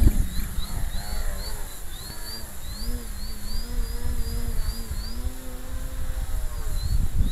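Electric motor and propeller of a Multiplex FunCub RC plane whining through take-off and climb, the pitch wavering up and down with throttle and flight, over heavy wind buffeting on the microphone.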